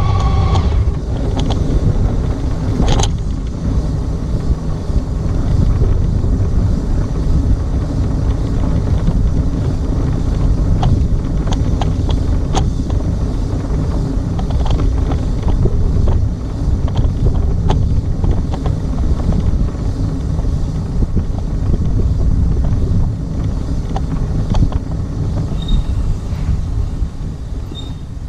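Honda ST1300 Pan European motorcycle being ridden, its V4 engine running under a steady, heavy low rumble of engine and wind noise on the bike-mounted microphone.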